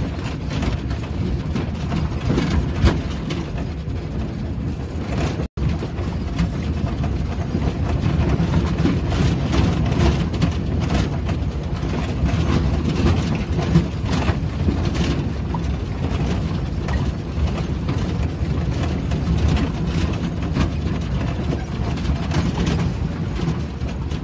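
A car's engine running and a bumpy dirt road heard from inside the cab as it drives: a steady low rumble, with scattered knocks and rattles from the body over the ruts. The sound cuts out for an instant about five and a half seconds in.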